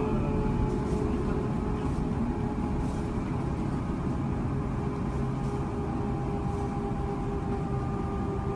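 Airbus airliner cabin noise in flight: a steady rush of jet engines and airflow heard through the cabin, with a steady single-pitch hum running through it.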